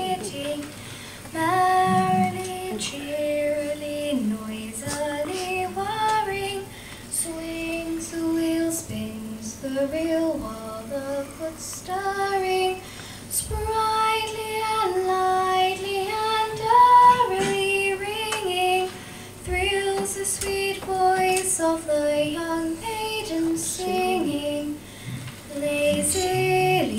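A young girl singing a folk song solo and unaccompanied, a single voice moving through held notes with short breaths between phrases.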